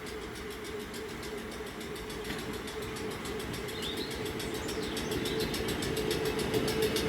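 A rail vehicle's steady electric hum with fast fine ticking, growing steadily louder as it approaches.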